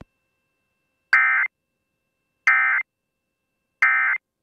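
Emergency Alert System end-of-message data burst: three short identical bursts of digital warble (the NNNN code sent three times), about a second and a half apart, signalling the end of the alert.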